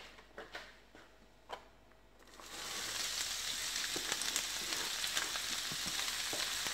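A few faint clicks, then about two and a half seconds in sliced cabbage, button mushrooms and green chillies drop into hot oil in a stainless steel frying pan and a steady sizzle starts at once, with crackling, and keeps on.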